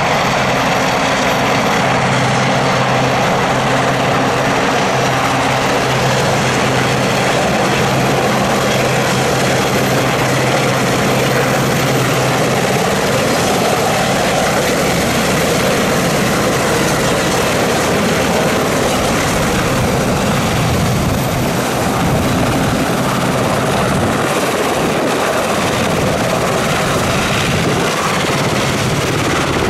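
Westland Sea King HAS.5 helicopter flying low and close, its five-bladed main rotor and twin Gnome turboshaft engines running loud and steady. A low steady hum under the rotor noise fades out about halfway.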